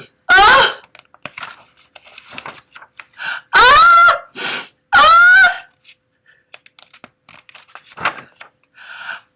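A woman's voice making drawn-out wordless vocal sounds, three times: just after the start, about four seconds in and about five seconds in, the later two rising in pitch. Faint clicks and rustling in between.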